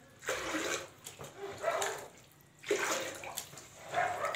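Water scooped from a tub with a plastic mug and poured out, four splashing pours about a second apart.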